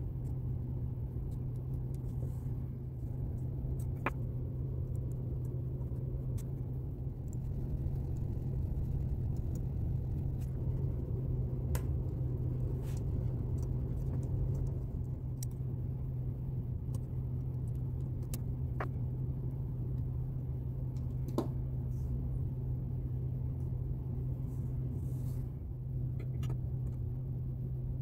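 Scattered small clicks and taps of a screwdriver, screws and brass parts as a clock movement is put back together, over a steady low hum.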